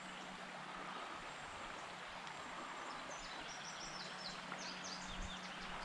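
Steady outdoor background of a flowing creek, with a bird singing a quick series of high, downward-sliding notes starting about three seconds in.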